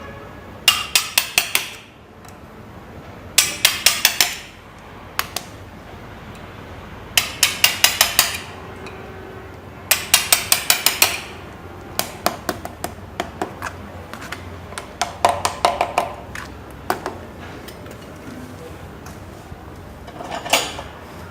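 Quick runs of light metal taps, five to eight in a second, repeated several times with single taps between: coil wires being tapped down into the slots of a DC motor armature during rewinding.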